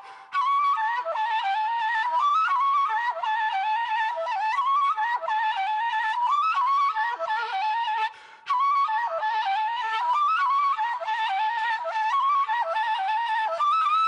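A Bulgarian kaval, the long end-blown wooden shepherd's flute, played solo: a fast, ornamented folk melody of quick running notes. It breaks off for short breaths near the start and about eight seconds in.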